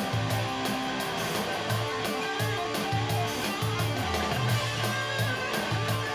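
Rock music: electric guitar with bass notes and a steady drum beat.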